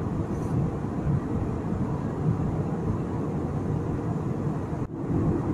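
Steady airliner cabin noise at a window seat: the low rumble of the jet engines and the hiss of air rushing past the fuselage in flight. The sound cuts out for an instant about five seconds in.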